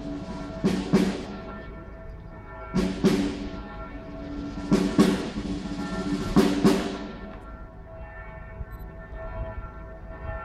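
Ceremonial brass and drums: the brass holds a sustained chord while a drum strikes twice in quick succession about every two seconds, four pairs in all. After the drumming stops, the brass chord carries on more quietly.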